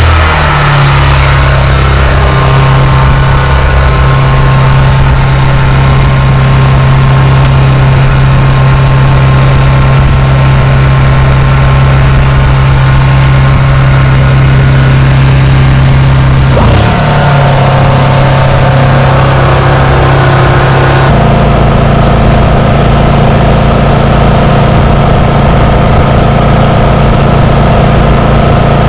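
Small portable generator engine running steadily at close range. Its note shifts twice in the second half, briefly and then settling into a different steady pitch.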